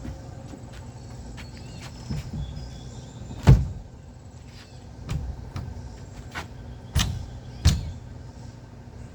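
Several sharp knocks at uneven spacing from work on the wooden wall framing: the loudest about three and a half seconds in, and two close together around seven seconds, over a steady low hum.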